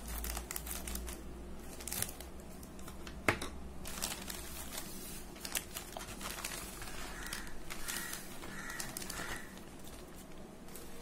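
Clear plastic packaging bag crinkling and rustling as hands open it and slide out a hot glue gun blister pack, with irregular small clicks and a sharp click about three seconds in.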